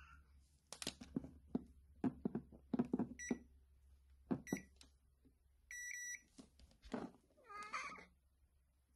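Multimeter continuity beeper giving three beeps, the last about half a second long, as test probes touch a mains power cord's plug pins and connector: the continuity tester showing the cord's wires are intact. Clicks and knocks of the probes and cable being handled are the loudest sounds, and a cat meows once near the end.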